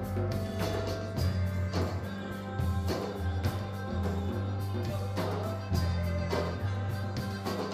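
Live band playing an electronica-rock jam: a loud electric bass line under regular drum hits, with keyboards.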